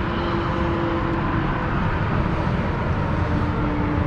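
Steady low rumble of outdoor background noise with a faint steady drone that drops slightly in pitch about three seconds in.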